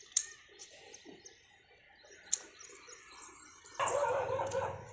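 Faint, scattered bird chirps over a quiet background, with one sharp click about two and a half seconds in. Near the end a louder, fuller background sound comes in.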